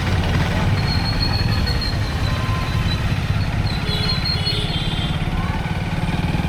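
Motorcycle riding along with its engine running and a steady low rumble of wind on the microphone. Thin, high, whistle-like tones come and go, at about one second in and again past the middle.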